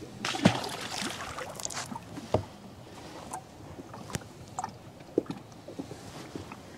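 A walleye released over the side of a small fishing boat, splashing into the water, with sharp knocks against the boat: the loudest about half a second in, another a couple of seconds later, then a few lighter clicks and knocks.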